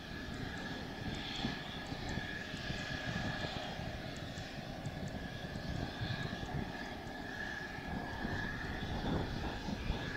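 Mitsubishi F-2B fighter's F110 turbofan running at idle as the jet taxis past: a steady high whine over a low rumble.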